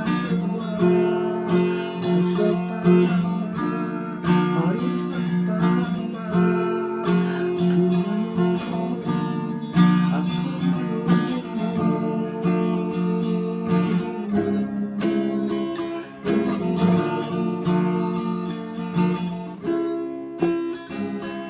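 Acoustic guitar music, strummed chords.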